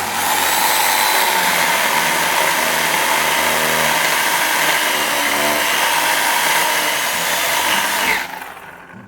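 Chainsaw running steadily with an even whine. It cuts off sharply about eight seconds in.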